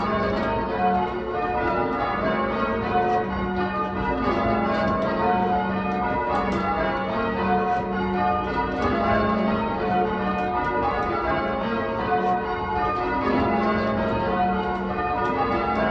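A ring of eight church bells, a 14 cwt eight tuned to F# and mostly cast by Taylor's, being rung in call changes. The bells strike one after another in a steady repeating row, their ringing tones overlapping.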